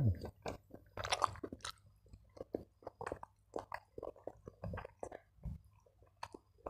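A person chewing a mouthful of rice eaten by hand: a run of short mouth and lip clicks, a few a second.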